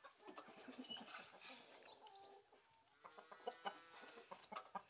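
Chickens clucking faintly: soft, scattered clucks that come more often near the end.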